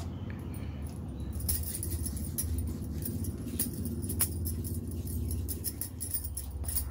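Tender tamarind leaves rustling and crackling as hands rub and crumble them on a plastic tray, a run of quick crisp clicks starting about a second and a half in. A steady low hum runs underneath.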